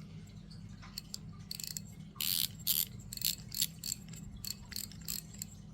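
A series of light clicks and rattles from a spinning reel and its parts being handled, starting about two seconds in, over a steady low hum.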